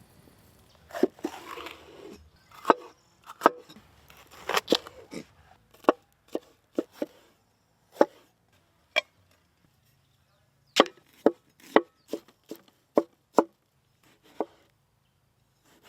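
Kitchen knife chopping vegetables on a cutting board: single sharp cuts at an uneven pace, some in quick pairs, with a brief rustle of handled food between about one and two seconds in.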